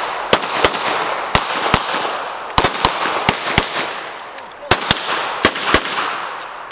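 Several revolvers firing in a rapid, uneven string of about a dozen sharp shots, often in close pairs, each followed by a short echo.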